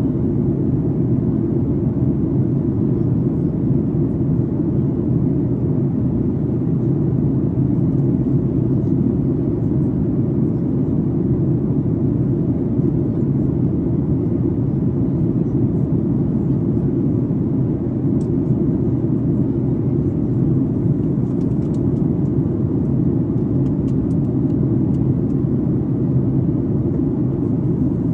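Steady, low rumble of a Boeing 737's jet engines and airflow heard inside the passenger cabin in flight.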